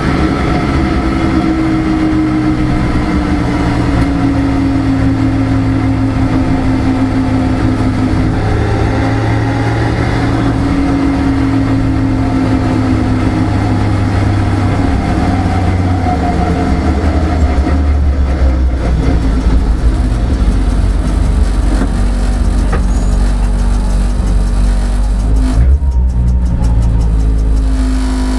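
Car engine heard from inside the cabin of a rally-prepared car, running steadily while driving, its pitch easing slowly down in the first half. Near the end the note changes abruptly as the driver shifts gear.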